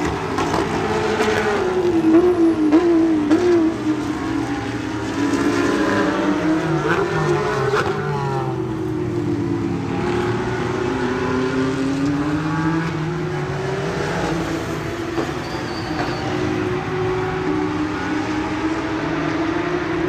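Race car engines running at speed, their pitch rising and falling as cars pass one after another.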